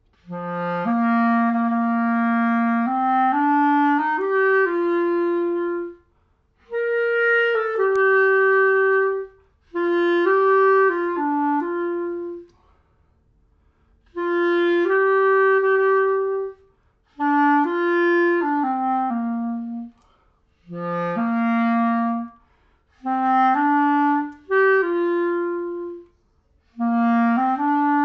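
Uebel Plateau soprano clarinet, fitted with its stock grenadilla barrel and played with a BD7 mouthpiece and Légère reed, playing about eight short phrases of connected notes in the lower register, with brief pauses between phrases.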